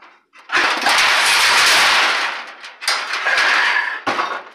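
Thin plasma-cut steel sheets scraping and clattering against each other as one is pulled out of a pile: a long loud scrape starting about half a second in, a shorter one near three seconds, and a sharp knock near the end.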